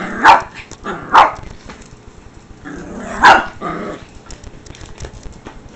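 Small dog barking: two sharp barks about a second apart, then a third about two seconds later.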